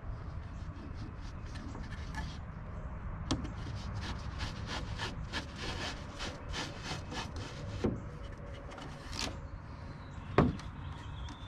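Wooden bottom panel being slid and worked into its grooves: repeated short scraping rubs of wood on wood, with a few wooden knocks, the loudest near the end.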